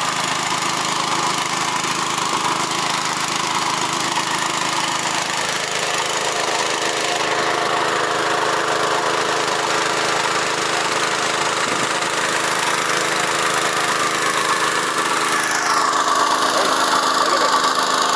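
Small engine of a Honda motor pump running steadily as it drives the sprayer, with the Agria 1900 two-wheel tractor's engine alongside. It grows slightly louder near the end.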